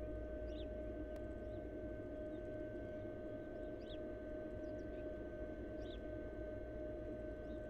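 Steady electrical hum and low hiss from a nest-box camera microphone, with faint short high chirps every second or two.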